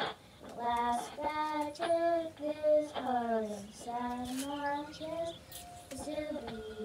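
Children singing a melody in short phrases of held notes, with brief breaks between phrases.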